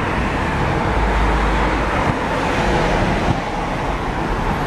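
Road traffic passing close by: a steady rush of car and tyre noise, with a deeper rumble about a second in.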